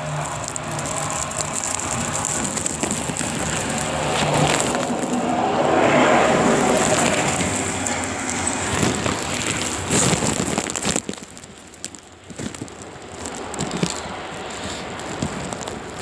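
Strong blizzard wind rushing over the tablet's microphone, with rustling and knocking as the tablet is lifted out of the snow and carried. The noise swells near the middle and drops away sharply about two-thirds of the way through.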